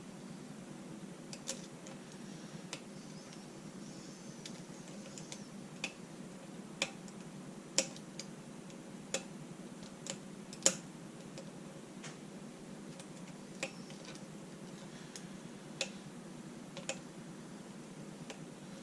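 Lock picking: a pick working the pins of a six-pin pin-tumbler lock under tension gives a dozen or so small, sharp, irregular clicks, the loudest about eight and eleven seconds in. A steady low hum runs beneath.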